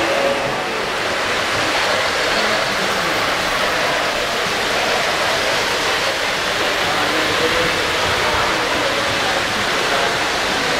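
Steady, even din of a crowded hall, with many overlapping voices blended with O-gauge three-rail model trains running on their track. No single voice stands out.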